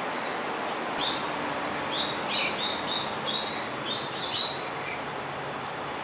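Coconut lorikeet calling: one short, high-pitched screech about a second in, then a quick run of about eight short screeches over the next two and a half seconds.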